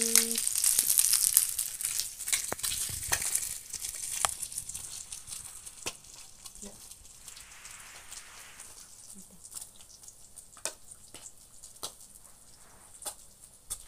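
Small fish frying in hot oil in a pan, sizzling with crackles and the clicks of a metal spoon and spatula against the pan. The sizzle is strongest in the first three seconds, then dies down to scattered pops and taps.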